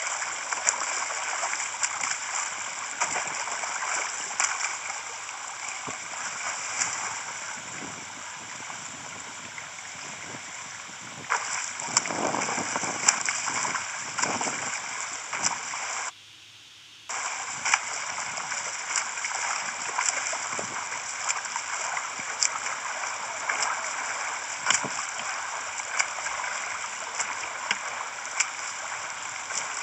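Pool water splashing and churning under a swimmer's front crawl arm strokes and kick. The sound cuts out for about a second roughly halfway through.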